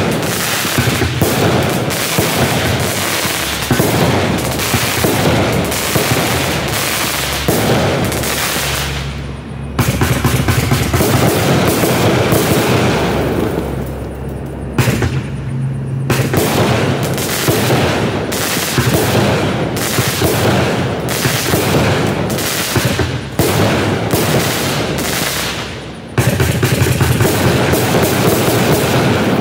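Black Cat 'Gunfighters from Hell' 500-gram, 49-shot multi-effect firework cake firing: a rapid, near-continuous string of loud bangs and crackling reports, made to sound like a gunfight. There are brief lulls about ten, fifteen and twenty-six seconds in.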